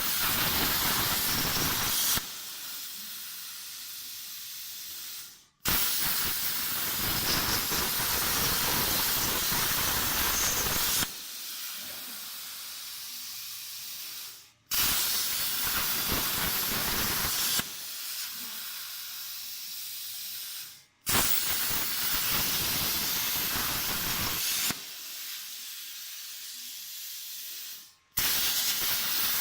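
CNC plasma cutter torch cutting sheet metal with a loud, rough hiss. It starts and stops repeatedly: cutting stretches of a few seconds alternate with a quieter high hiss of air flowing between cuts, each ending in a brief break before the arc strikes again.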